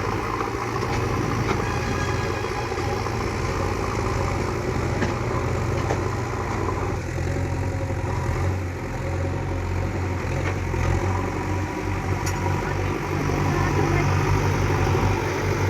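JCB excavator's diesel engine running steadily, getting a little louder near the end, with a few faint clicks.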